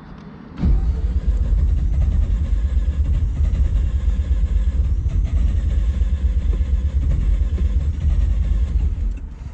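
Mazda RX-7 FC's turbocharged 13B rotary engine cranking on the starter without catching. The cranking starts about half a second in, runs steadily for about nine seconds and stops near the end. The engine is slow to start after sitting unused for a couple of weeks.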